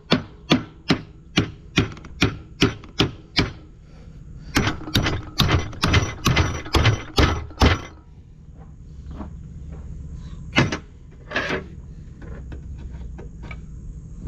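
Small hammer striking a wedge tool held in the seam of a corn head gearbox housing to split the housing apart: sharp metallic blows about two and a half a second, then a quicker, heavier run of blows, then slower scattered knocks and taps.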